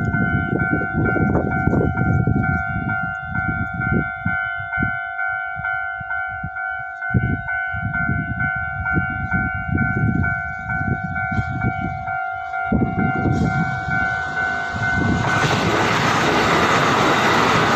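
Level-crossing warning bell ringing in a steady repeating two-tone pattern, over an irregular low rumble. About 13 seconds in, the rushing noise of a passing EMU900 electric multiple unit swells up and drowns out the bell.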